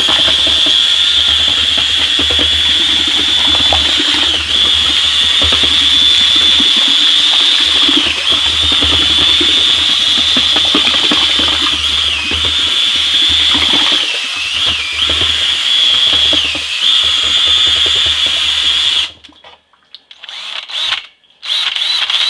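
Electric drill running on high, stirring thick corn mash with a mixing paddle in a plastic barrel. Its steady whine dips briefly a few times, then it stops about 19 seconds in, followed by a few short bursts.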